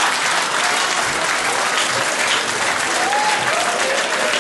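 Audience applauding steadily, a dense patter of clapping, with a voice briefly heard over it about three seconds in.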